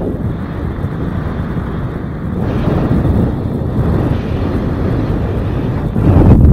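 Wind rushing and buffeting on the microphone during a descent under an open parachute, gusting louder about six seconds in.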